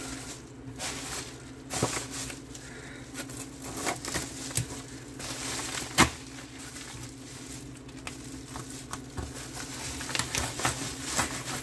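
A dull knife sawing and tearing through the end of a yellow paper padded mailer, with irregular scraping and crinkling of the paper. A single sharp knock about six seconds in is the loudest sound.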